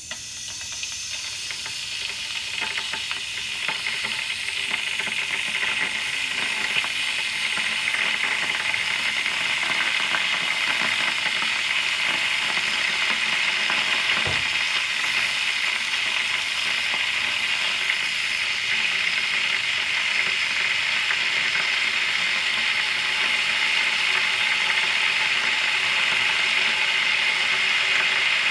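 Electric kettle heating water, close-miked: a steady hiss that grows louder over the first eight seconds or so, then holds.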